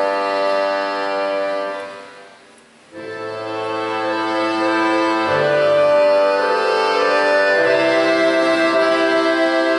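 Russian folk-instrument orchestra playing sustained chords with bayans prominent; the chord fades away about two seconds in, and after a short lull a new chord enters and swells, with a low bass note joining a couple of seconds later.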